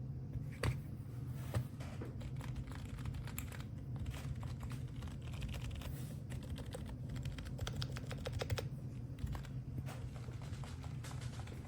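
Typing on a MOFII wireless membrane number pad: a quick, uneven run of light key clicks. The stabilizers have been taken out of the 0 and Enter keys to quiet them.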